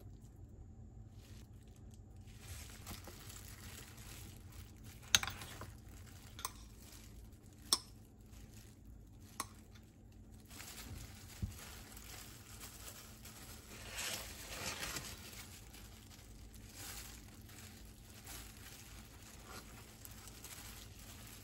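Kitchen handling sounds: a handful of sharp clicks and knocks from utensils or dishes, the loudest about five and eight seconds in, between stretches of soft rustling and crinkling.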